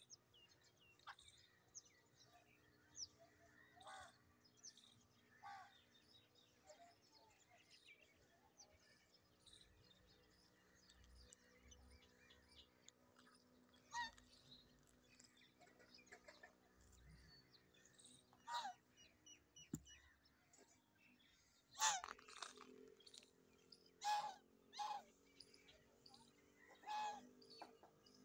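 Faint, scattered bird chirps, with several louder short calls in the second half, the loudest about two-thirds of the way through.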